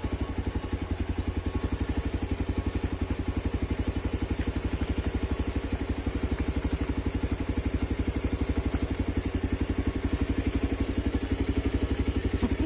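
An engine running steadily with a fast, even beat that does not change in speed.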